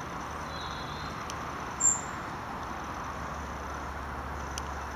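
Quiet outdoor ambience with a steady hiss and low hum. About two seconds in comes one short, very high-pitched chirp, with a faint click near the end.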